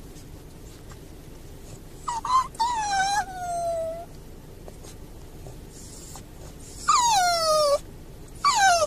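Cavalier King Charles Spaniel whining in distress: three long, high whines, each sliding down in pitch, the first about two seconds in, the second about seven seconds in and the third near the end.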